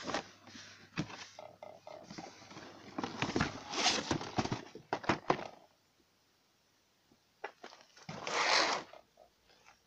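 Cardboard boxes being handled: a boxed crossbow is pulled out of a cardboard shipping carton with rustling, scraping and knocks, then one short scrape about eight seconds in as the box is laid on the table.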